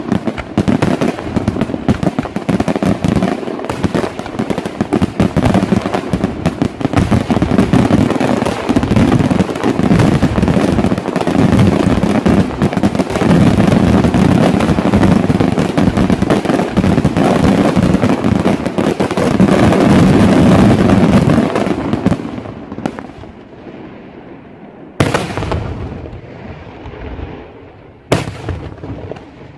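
Daytime fireworks: a dense, continuous barrage of bangs and crackling that dies away about 22 seconds in, then two single loud bangs near the end.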